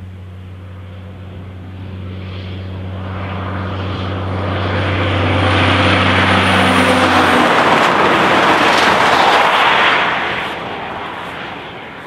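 A diesel road-train prime mover pulling three trailers approaches and passes close by. Its steady engine drone grows louder, then the rush of tyres and trailers is loudest from about six to ten seconds in, as the engine note drops away on passing, and the noise fades near the end.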